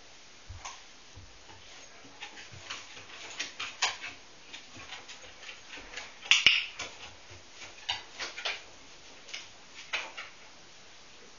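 A dog's claws clicking irregularly on bare wooden floorboards as it walks around the cones, with a louder clatter about six and a half seconds in.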